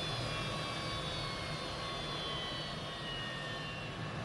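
Bombardier Global 6000's twin Rolls-Royce BR710 turbofans at takeoff power as the jet climbs out after rotation: a steady jet roar with a high turbine whine that slowly falls in pitch.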